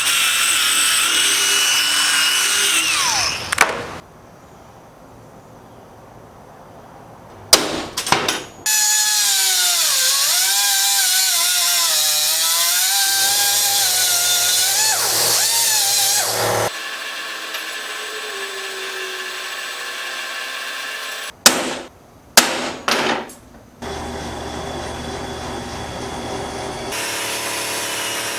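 Handheld power tools used on metal in a run of short clips, each starting and stopping abruptly: a high motor whine that dips in pitch as the tool is pressed into the work and recovers, with a few sharp clicks and knocks between the clips.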